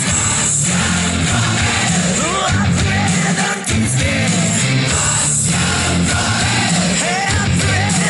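Loud rock music with a singing voice and a steady beat, with a short break about three and a half seconds in.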